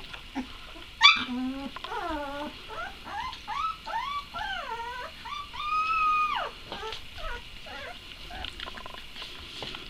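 A dog's play vocalising: a loud sharp yelp about a second in, then a string of short whining cries, each rising and falling in pitch. One longer, held whine comes around the middle, and after it only faint scattered ticks remain.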